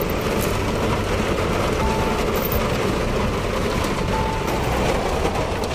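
Heavy rain on a car, heard from inside the cabin, with road noise from the car driving: a steady hiss and low rumble. Two faint short tones sound about two and four seconds in.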